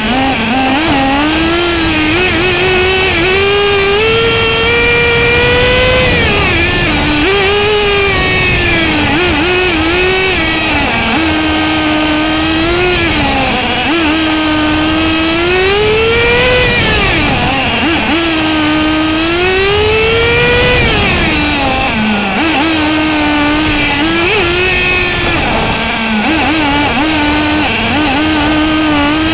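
Bycmo radio-controlled car's nitro engine, heard up close from on board, revving hard and easing off again and again: the pitch climbs for a few seconds under throttle, then drops as the car lifts for the corners.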